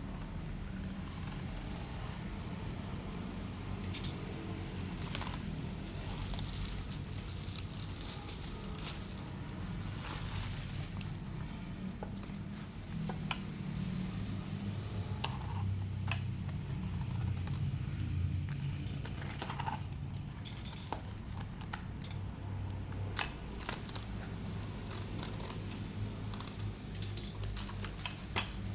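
Packaging rustling and crinkling, with scattered sharp clicks and taps from a new hacksaw being unpacked and handled, over a steady low hum. The sharpest clicks come about four seconds in and near the end.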